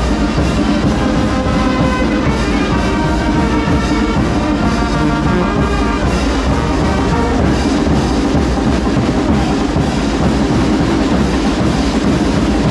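Live Mexican brass band, with saxophones, trombones and trumpets over bass drum and cymbals, playing loud, steady chinelo dance music.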